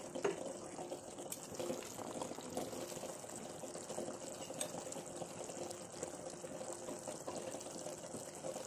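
Tomato-onion curry base simmering in a steel kadai on the stove: a faint, steady bubbling hiss.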